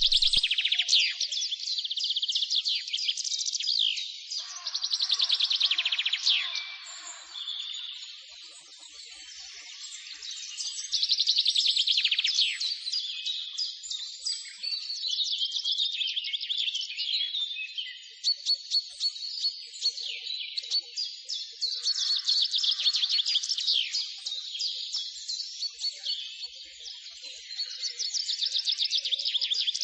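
Many small birds chirping and twittering at once, a dense chorus of rapid high chirps and trills, with a brief quieter lull partway through.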